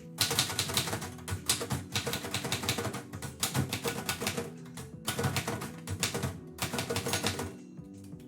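Typing on a 1934 Royal Model O manual typewriter: rapid clacking keystrokes in two runs, broken by a short pause about halfway and stopping shortly before the end. Quiet background music plays underneath.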